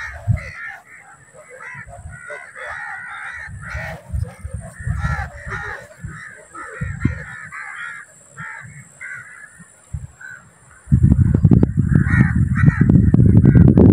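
Crows cawing over and over. About eleven seconds in, a loud low rumbling noise sets in and drowns out the low end.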